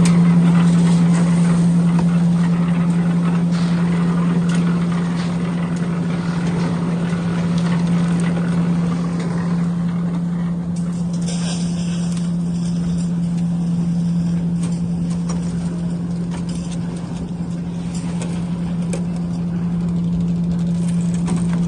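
Machine engine running at a constant speed, a strong steady hum, with a few faint clicks and knocks over it.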